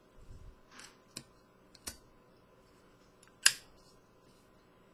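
Small clicks and taps from handling a black Zippo lighter, with one sharp click about three and a half seconds in.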